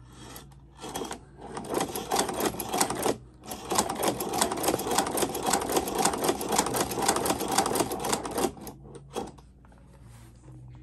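Hand-cranked walking foot cobbler sewing machine stitching leather: rapid mechanical clicking of the needle, walking foot and flywheel. It runs in two spells, a short one and then a longer, louder one of about five seconds, and stops a couple of seconds before the end.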